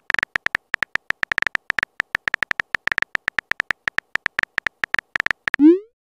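Rapid phone-keyboard typing clicks, a quick irregular run of short sharp taps, then a short rising swoop near the end as the message is sent.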